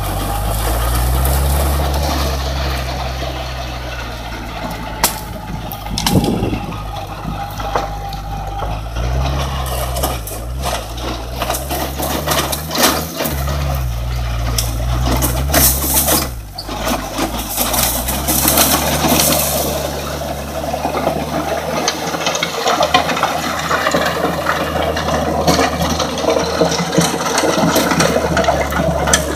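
Kubota L4508 tractor's diesel engine running under load, its pitch rising and falling a few times, while the rear rotary tiller churns soil and chops brush with a constant noisy rush. Scattered sharp cracks and knocks of branches and debris hit the blades through the middle.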